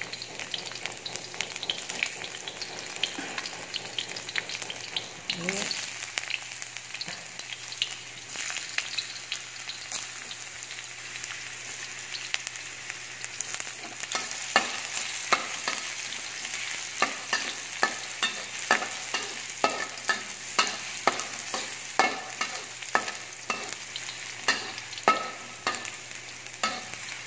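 Chopped garlic and ginger sizzling in hot oil in a wok while being sautéed, stirred with a metal spatula. From about halfway through, the spatula scrapes and knocks against the wok about once or twice a second.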